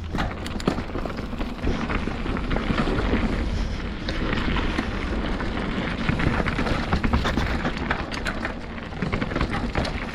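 Mountain bike rolling fast down a dirt trail: tyres on dirt and rocks with the bike rattling and clicking over the bumps, over a steady low rumble.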